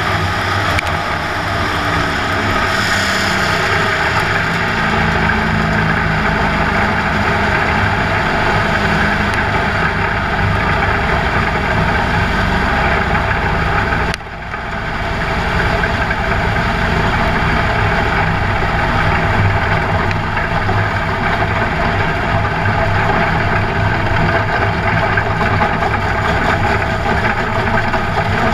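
Dirt late model race car's engine running on the track, heard from inside the cockpit through the in-car camera, with a steady, even note. About halfway through the sound drops out for a moment and then comes back.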